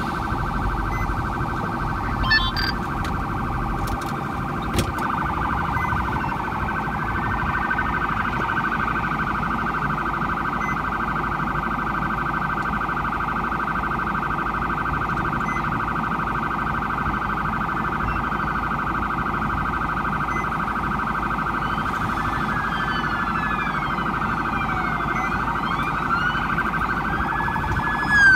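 Police siren sounding a fast, steady warble, with a second siren's slow rising and falling wail gliding in over the last several seconds.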